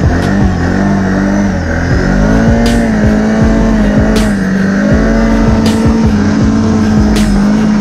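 Can-Am Renegade 650 XXC quad's V-twin engine running under load at fairly steady throttle, its pitch wavering slightly as the quad ploughs through deep snow.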